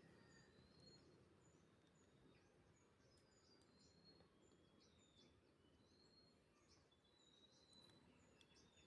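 Near silence, with faint, short, high-pitched bird chirps now and then.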